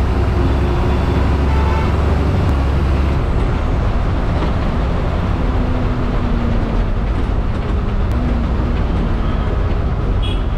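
Inside a moving city bus: steady engine drone and road rumble, with a deep low rumble that is heaviest for the first three seconds.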